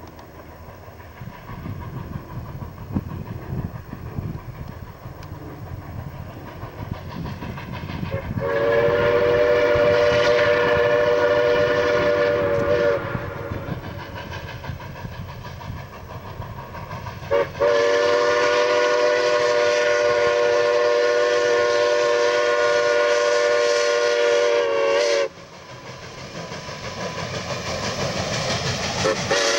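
Atchison, Topeka & Santa Fe 3751 steam locomotive working past with a passenger train: its exhaust and running rumble grow louder as it approaches, then its whistle sounds a chord of several notes in two long blasts, the second nearly twice as long as the first. A third blast begins near the end.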